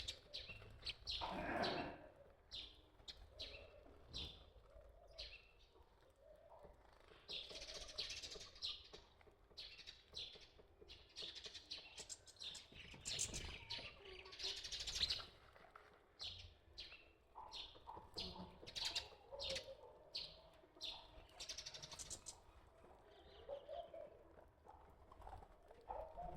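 Birds chirping: many short, high chirps repeated throughout, in busier bursts now and then.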